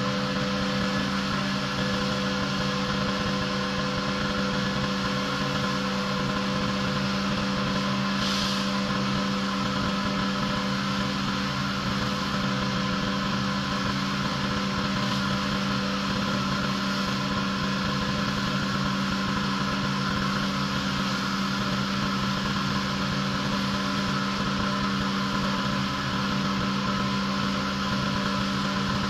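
Pressure washer's petrol engine running steadily at constant speed, with a brief hiss about eight seconds in.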